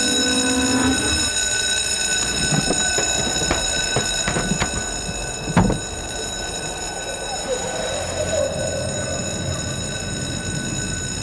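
Boat engine running below deck, a steady drone with a high whine over it. Several knocks come between about two and a half and five and a half seconds in, ending in one louder thud, likely boots on the wooden steps and deck.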